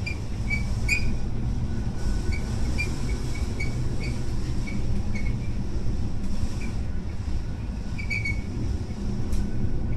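A small ship riding through a storm, heard from inside its wheelhouse: a steady deep rumble of engine, wind and sea. Many short high-pitched squeaks come at irregular intervals.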